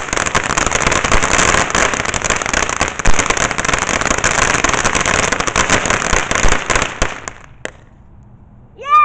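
Ground fountain firework spraying sparks: a loud, dense crackling hiss that dies away about seven seconds in, with one last pop. A high, falling cry starts right at the end.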